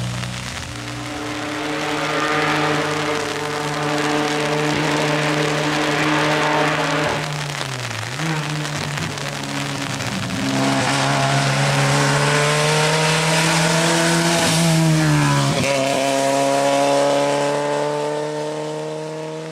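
Historic rally car engine running hard on a closed night stage. The engine note holds high, drops sharply about eight seconds in and again about fifteen seconds in, and climbs again after each drop.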